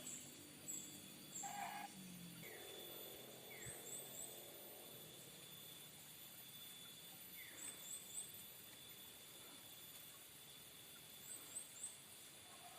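Faint ambience with a small bird repeating a quick, high three-note chirp about every three and a half seconds, with a few single falling notes between.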